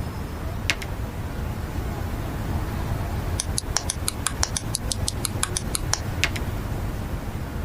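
Sharp plastic clicks from a model kit's parts being handled: one click, then a quick even run of about sixteen clicks, roughly six a second, then another single click, over a steady low hum.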